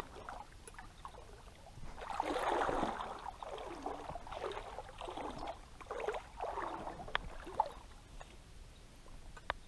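Water sloshing and swishing in a series of uneven surges, strongest near the start, with a few sharp clicks near the end.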